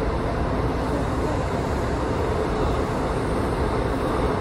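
Passenger train running: a steady rumble of rail noise with no breaks.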